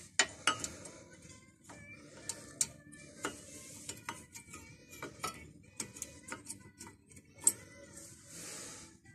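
Irregular light metallic clinks and taps as a thin steel brake-pad shim is handled and fitted against a brake pad and caliper by hand. Two clinks, just after the start and near the end, are sharper than the rest.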